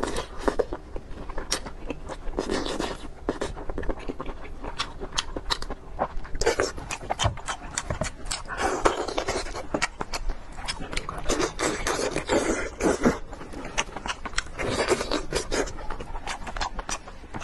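Close-miked mukbang eating: chewing with many quick wet mouth clicks, and audible breaths every second or two between bites.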